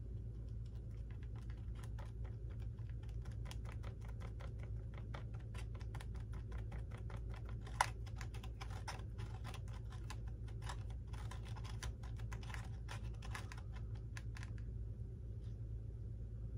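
Quick irregular clicking and tapping of small hard model parts as fingers press and work pieces into a model airplane's cockpit section, with one sharper click about eight seconds in. The clicking stops near the end, over a steady low hum.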